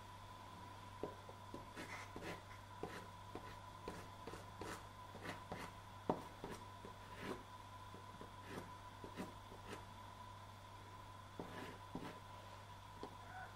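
Jackson's soft pastel stick scraping over a primed linen board in quick, uneven strokes, about two to three a second, with one sharper tap about six seconds in. A steady faint hum runs underneath.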